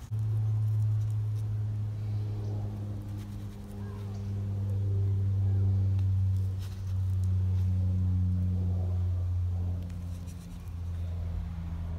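A steady low mechanical hum with one higher overtone, starting abruptly and slowly swelling and easing in level.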